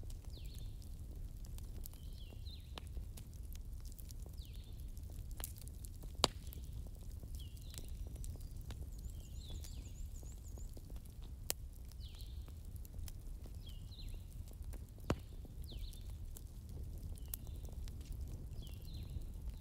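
Bonfire crackling, with small ticks throughout and three sharp pops, over a low steady rumble. A short high chirp from an animal repeats about every second and a half.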